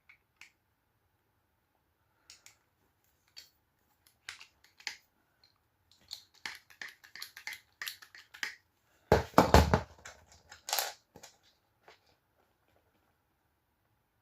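Clicks and metal rattles from handling a hand hydraulic crimping tool and its die blocks, getting busier partway through, with a loud clunk and clatter about nine seconds in and a sharp click just after.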